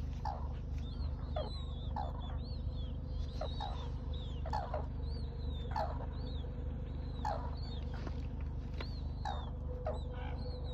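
Red-crowned cranes calling: short, falling calls repeated about once a second, with many high arched chirps between them, over a steady low hum.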